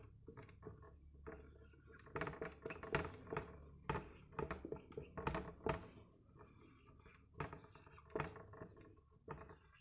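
Faint, irregular light taps and knocks in small clusters, like handling or writing with a hard object on a surface.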